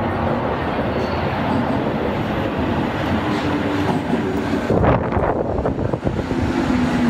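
Toei 12-000 series linear-motor subway train pulling into the platform. Its rumble grows as it approaches, with a steady hum, and there is a loud rush of noise as the front car passes about five seconds in.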